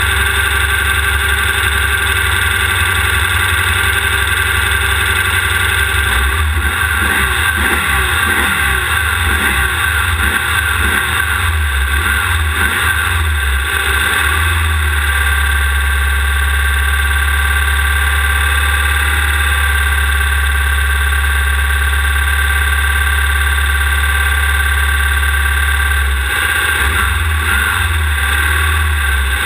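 Class 1600 off-road race buggy's air-cooled 1600 cc VW engine running hard, heard from the back of the car. Its revs rise and fall again and again from about six to fourteen seconds in and again near the end, over a steady noisy rush.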